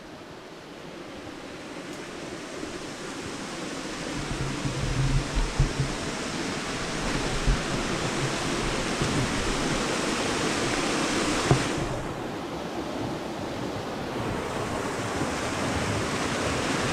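Steady rush of falling water from a waterfall, swelling over the first few seconds, with a few low thumps of wind on the microphone about five seconds in.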